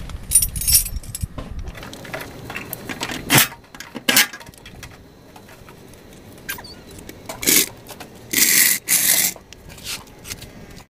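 Metallic clinks, knocks and rattles of tools and the floor jack while the refitted fuel tank is being fastened under the car, with two short harsh noise bursts near the end.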